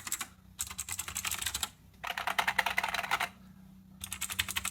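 Fast typing on computer keyboards: three runs of rapid key clicks, each about a second long, with short pauses between. It is a semi-mechanical membrane keyboard, the Redgear Blaze 3, set against a mechanical keyboard, and the middle run is sharper and brighter than the others.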